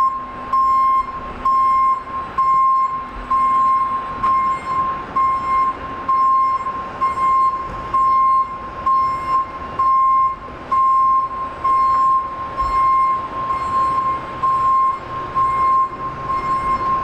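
Reversing alarm on a Rosenbauer RTX electric fire engine, beeping steadily about once a second as the engine backs up.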